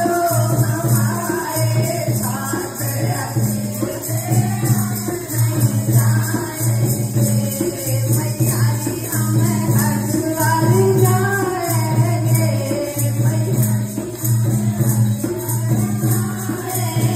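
A woman's voice singing a devotional bhajan through a microphone and loudspeaker. Jingling wooden hand clappers (kartal) and a dholak hand drum keep a steady, even rhythm under the singing.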